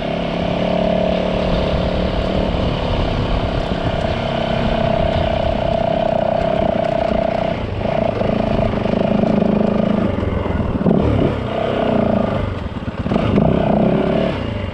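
Yamaha WR450F single-cylinder four-stroke dirt bike engine running at a steady throttle, its note then rising and falling from about eight seconds in as the throttle is worked.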